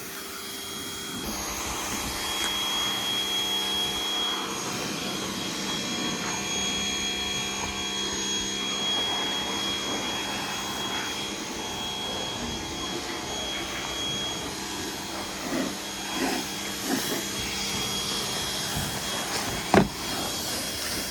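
Pressure washer running steadily, a whining motor and pump with the hiss of the water spray, starting up about a second in. A single sharp knock comes near the end.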